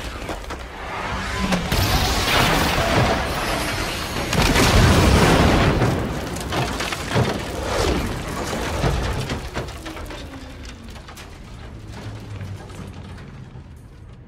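Film sound effects of a passenger train crashing down a rocky gorge: heavy booms and crashing metal and debris. It is loudest about two and five seconds in, then fades away to scattered clatter.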